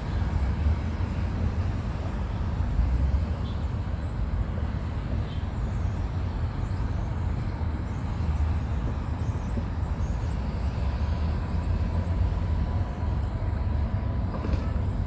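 Wind buffeting the microphone: a continuous low rumble that rises and falls gently in strength.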